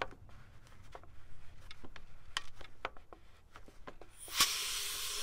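Cap of a Motive Products Power Bleeder pressure brake bleeder being slowly unscrewed: a few faint clicks from the cap, then about four seconds in, a steady hiss as the pressurised air escapes from the tank.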